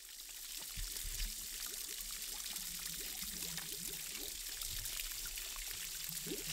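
Small mountain spring trickling: a thin stream of water pouring steadily down a rock face onto stones.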